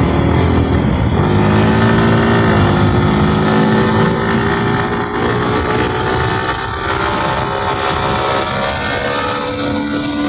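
Yamaha R15M's 155 cc single-cylinder engine running under way at riding speed, over a constant rush of wind and road noise. The pitch climbs for the first two seconds or so, falls back about two and a half seconds in, then holds a steady note.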